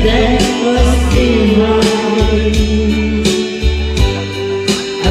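A man singing into a karaoke microphone, amplified over a karaoke backing track with a bass line and a steady drum beat.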